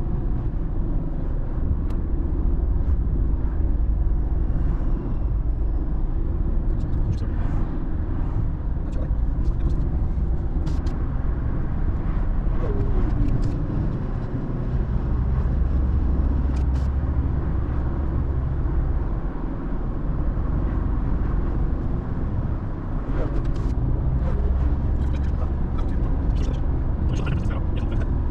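Car driving on a highway: steady low road and engine rumble, with scattered short clicks and ticks.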